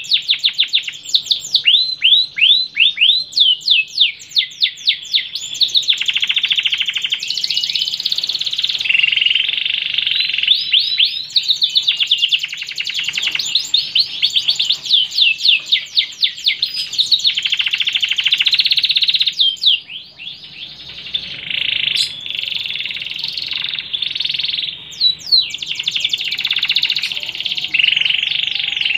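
Domestic canary singing a long song of fast, repeated downward-sweeping notes and rolling trills, with a brief softer stretch about twenty seconds in.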